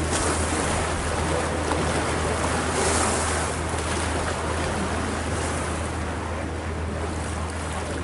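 Motor boat on a lake: the engine runs with a steady low drone while water rushes and splashes along the hull, swelling briefly about three seconds in, with wind on the microphone.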